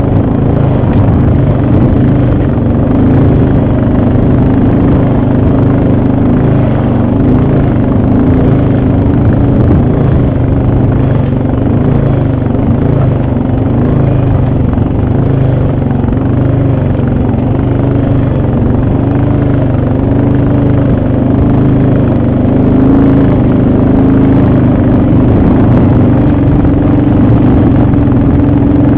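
ATV engine running steadily while riding, its pitch wavering gently up and down with the throttle.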